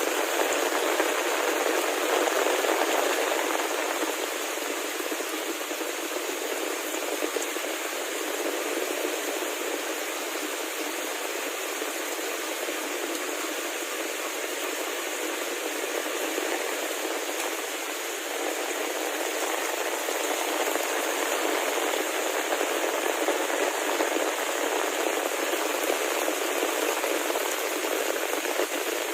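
Heavy rain falling steadily, a continuous even patter and hiss.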